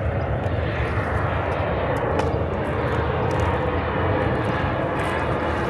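Jet airliner flying low on its landing approach, its engines giving a steady rumble with no break.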